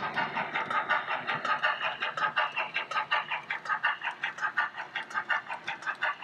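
Steam-locomotive chuffing played by a model 14xx tank engine's Zimo DCC sound decoder through its on-board speaker: a quick, even beat of about five chuffs a second, with the chuff rate matched to the model's running speed.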